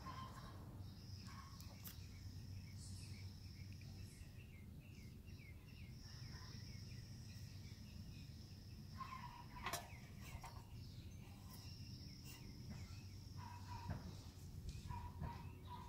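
Faint outdoor background: a steady low hum with thin, high chirps and trills that come and go, and a single sharp click about ten seconds in.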